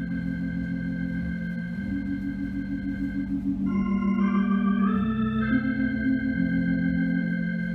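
Organ playing slow, sustained chords that change every few seconds, with a short rising run of notes about four seconds in. The held low notes waver with a tremolo.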